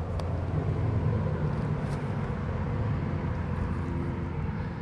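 Steady low rumble of a running engine, with a couple of faint clicks.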